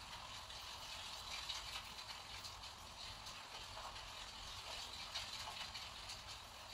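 Faint scratchy rustling and light ticks of a small brush dabbing paint onto rough 300 g/m² watercolour paper.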